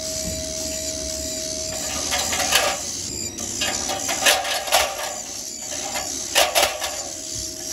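Nestling birds giving harsh, raspy begging calls in short bursts, several times over a steady background hiss. A steady hum is heard for the first couple of seconds.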